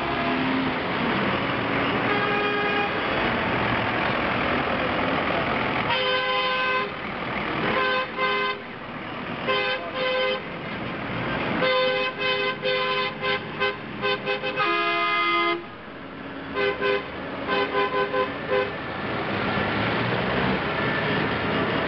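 Farm tractors driving past with engines running while horns honk repeatedly, some long blasts and a quick run of short toots in the middle.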